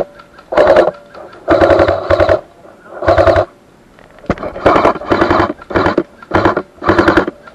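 Airsoft rifle firing full-auto in short bursts, about eight in a row, each a rapid mechanical rattle of shots; the gun is firing to suppress an opponent.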